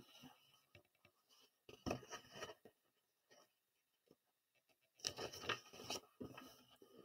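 Faint paper rustle as a hand slides over and turns a page of a paperback picture book: a few soft brushes about two seconds in, then a longer rustle about five seconds in as the page turns.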